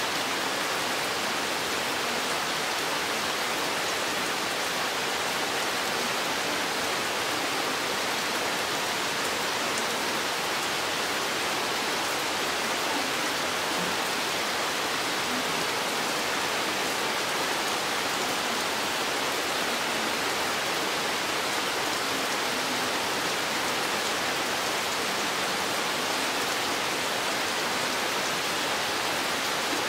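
Steady rain falling in a forest, heard as an even hiss with no thunder.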